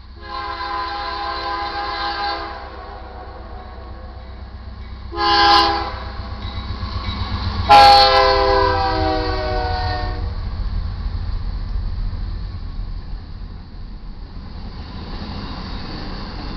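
Air horn of a BNSF GE C44-9W freight locomotive sounding for a grade crossing: a long blast, a short blast, then a long blast that drops in pitch partway through as the locomotive passes. Under and after it comes the rumble of the freight train rolling through.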